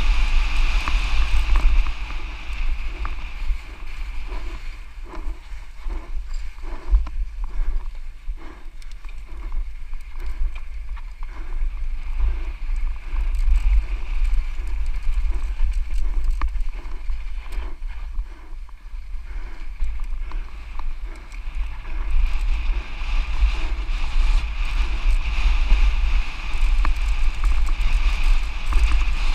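Wind buffeting the camera microphone over a Santa Cruz Nomad mountain bike rattling down a dirt trail at race speed. From about five seconds in until just before twenty seconds, an even beat of about two a second runs under the noise.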